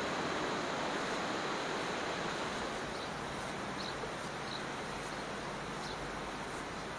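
Steady wash of gentle surf on a sandy beach, a little softer after the first few seconds, with a few faint short high chirps about halfway through.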